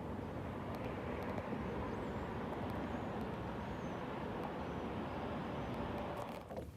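Aluminium fishing boat under way on its Honda 40 outboard: a steady rush of motor and water noise that drops away near the end.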